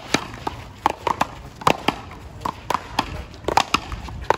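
A paddleball rally: the rubber ball is struck by solid paddles and bounces off the concrete wall and court, giving a rapid, irregular series of sharp pops and knocks, some with a brief ringing tone.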